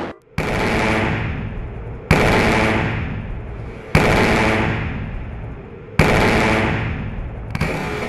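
Electromagnetic railgun test shots and projectile impacts: four loud blasts about two seconds apart, each a sudden crack fading into a long rumble, with a weaker one near the end.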